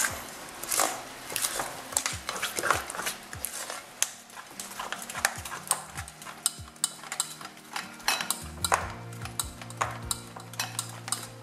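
A utensil stirring thick bolinho de chuva batter in a glass mixing bowl, giving many irregular clinks and scrapes against the glass.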